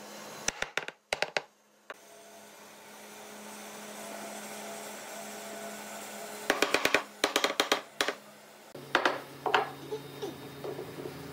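Wooden mallet knocking glued framed cabinet side panels down into their joints on a solid-wood base: a few sharp knocks just after the start, a fast run of knocks past the middle and a few more near the end. A steady workshop hum runs underneath and drops in pitch past the middle.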